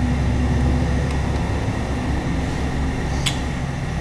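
Steady low mechanical hum, with a single sharp click about three seconds in.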